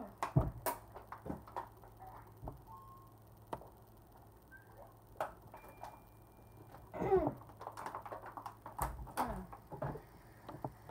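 Children moving about in a small room: scattered knocks and thumps, the sharpest just after the start, and a short muffled vocal sound about seven seconds in.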